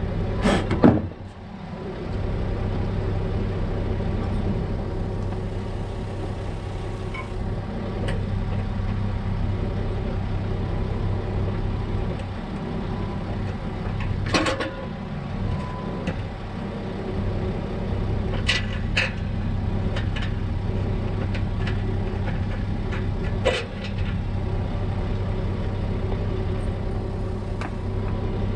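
A vehicle engine idling steadily. There is a short loud burst near the start and a few sharp knocks later on.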